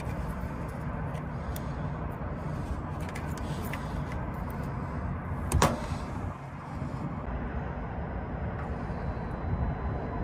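Plastic wiring plugs being handled and unplugged by hand, with small clicks and one sharp, loud click about five and a half seconds in, over a steady low background rumble.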